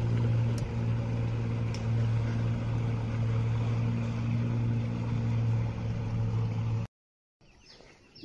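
Boat outboard motor running steadily, a continuous engine drone that cuts off abruptly about seven seconds in, leaving faint outdoor background.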